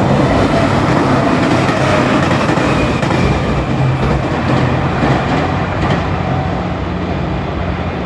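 A diesel limited express train passing close by over a level crossing: a steady loud rumble of wheels on the rails mixed with the diesel engine's low drone, easing off slightly toward the end.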